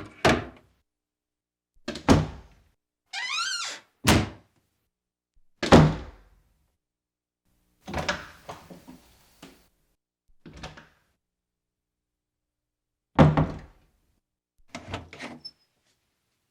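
Wooden door sound effects: a string of separate heavy thuds as the door shuts, about every two seconds. Just before the third thud there is a short wavering creak. About eight seconds in comes a cluster of smaller rattling knocks.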